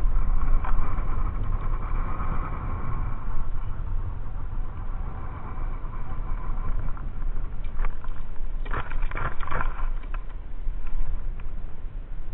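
Wind buffeting the camera microphone over open water: a steady low rumble that swells and eases, with a few short knocks from handling the baited hook about nine seconds in.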